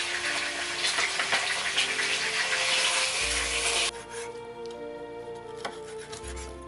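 Butter, oil and garlic sizzling in a frying pan over background music. The sizzle cuts off abruptly about four seconds in, leaving the music with faint knife strokes on a wooden cutting board.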